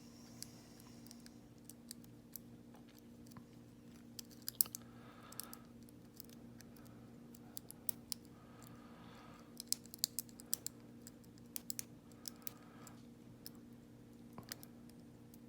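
Small metallic clicks and ticks of a lock pick working the pins of a Lockwood 30mm laminated padlock under a tension wrench, coming irregularly in short clusters. A steady low hum runs underneath.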